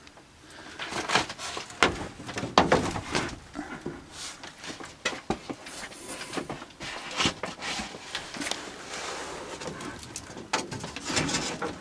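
A plywood sheet scraping and knocking against a wooden cabinet as it is shifted by hand, with irregular clicks and rustles of handling. The loudest knocks come about two to three seconds in.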